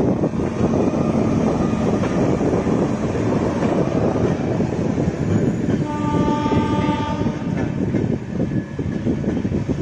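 Express train passing close by: a continuous rumble and clatter of coach wheels on the rails, with a train horn sounding for about a second, around six seconds in.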